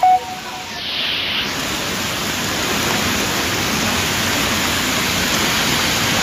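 Heavy rain pouring onto a paved surface, a steady, dense hiss. Right at the start a short, loud pitched tone sounds and cuts off, and the rain noise dips briefly before filling back in about a second in.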